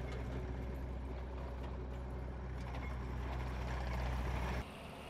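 Massey Ferguson 240 tractor's three-cylinder diesel engine running steadily as the tractor drives off. About four and a half seconds in, the sound changes abruptly to a quieter, different engine note.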